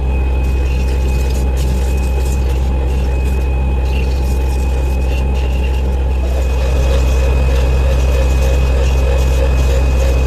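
An electric dental-lab machine running steadily, with a strong low hum and a thin high whine; about six seconds in its tone shifts slightly.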